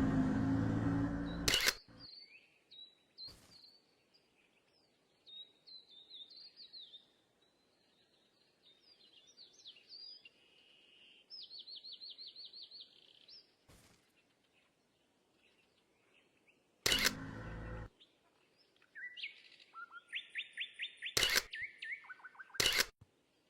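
Small birds singing: many short chirps and several fast trilled phrases. A loud burst of noise opens it, and sharp knocks or clicks break in several times.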